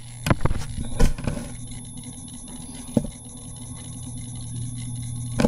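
Stylus tapping and clicking against a tablet screen while writing: a quick run of sharp taps in the first second and a half, then single taps about three seconds in and near the end, over a steady low hum.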